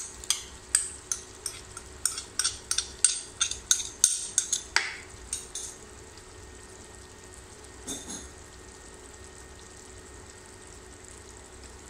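Spoon tapping and scraping onion paste out of a small bowl into a wok: a quick run of clinks, about three a second, that stops after about five seconds. Under and after it, the onions frying in oil and a little water sizzle softly and steadily.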